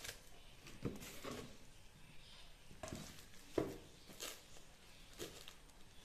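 Bubble wrap and plastic packaging rustling and crinkling in short, irregular bursts as hands handle and unwrap a voltage stabilizer, with one louder bump about three and a half seconds in.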